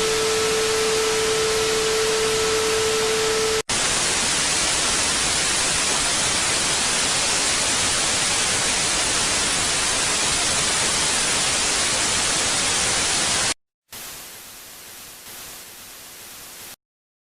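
TV static from a set with no signal: a steady hiss. For the first three and a half seconds a steady hum-like tone sits under it. After a brief break the hiss runs louder without the tone, and after a second break it returns quieter before stopping near the end.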